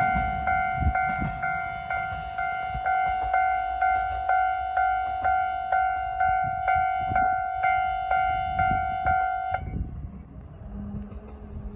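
Level-crossing warning bell ringing in an even repeating ding, about two and a half strikes a second, then stopping about nine and a half seconds in, the sign that the train has cleared the crossing.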